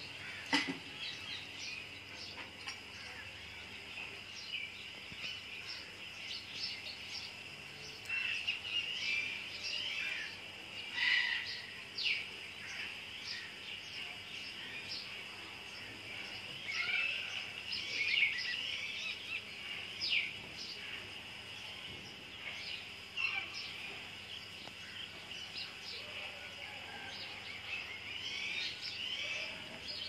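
Birds chirping and twittering in scattered short calls that come in flurries, with a steady high-pitched hum underneath.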